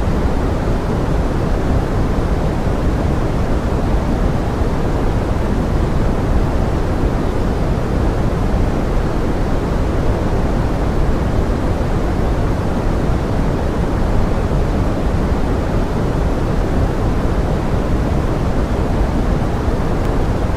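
Steady pink noise: an even, deep rushing hiss that thins out in the highs and does not change.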